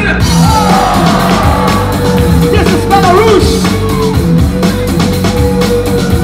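Loud music with a steady beat and a long held note.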